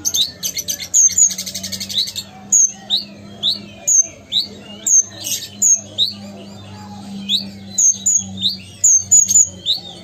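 Kolibri ninja sunbird singing actively (gacor): a busy string of short, high chirps, with a fast rattling trill about a second in.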